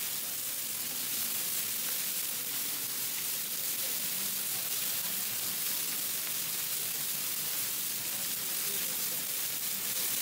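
Chicken kebabs sizzling on a flat-top griddle, a steady hiss of frying.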